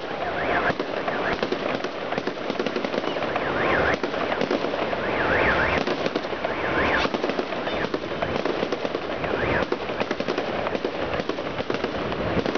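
Fireworks display: a dense, unbroken run of crackling and popping reports from bursting shells, with no pauses.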